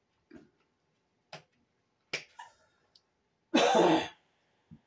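A few short, soft mouth smacks from chewing a sandwich, then one loud cough lasting about half a second, about three and a half seconds in.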